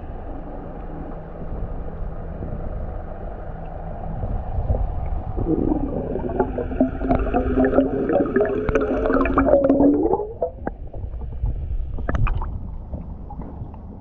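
Muffled underwater sound of bubbles gurgling past the camera, over a low rumble. In the middle a droning tone runs for about five seconds, full of little pops, and bends upward as it stops. A sharp knock comes near the end.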